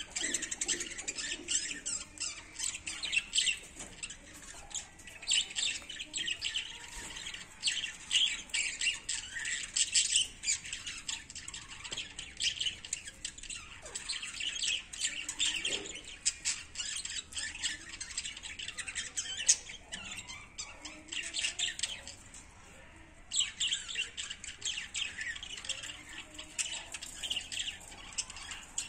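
Several guinea pigs chewing fresh leafy greens: a dense, continuous run of quick crisp crunches and rustling stems, with a short lull late on.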